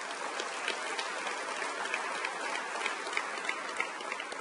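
Audience applauding, a dense patter of many hands clapping that holds steady and starts to die down near the end.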